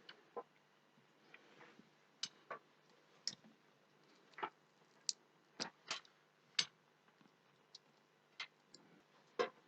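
Small cutters snipping as the end of a coax cable is trimmed: a dozen or so short, sharp clicks at irregular intervals.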